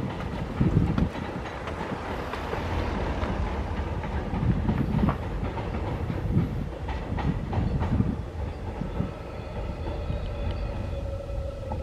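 Subway train running on the track, its wheels knocking irregularly over rail joints with a steady rumble underneath. From about nine seconds in, a steady whine of several tones sets in and sags slightly in pitch.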